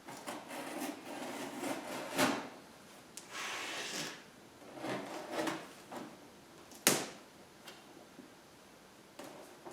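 A heavily taped cardboard package being worked open by hand: cardboard rustling and scraping with stretches of tape pulling, broken by sharp knocks, the loudest about seven seconds in.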